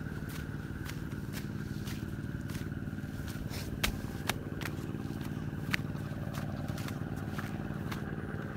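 An engine running steadily, with a sharp click about twice a second; the clicks are loudest about four seconds in and again near six.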